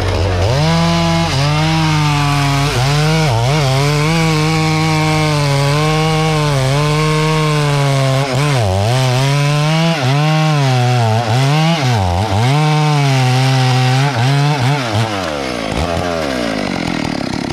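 Stihl MS 250 two-stroke chainsaw at full throttle, cutting through a tree trunk. Its pitch dips again and again under the load of the cut, then falls away as the throttle is released near the end.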